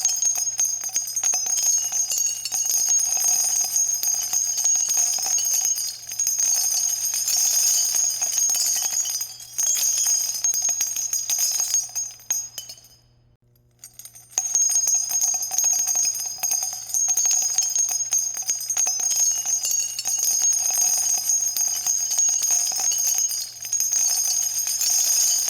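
Spent .50 calibre brass cartridge cases pouring down and jingling against each other in a dense, continuous metallic clatter with bright ringing. It stops for about a second and a half near the middle, then starts again.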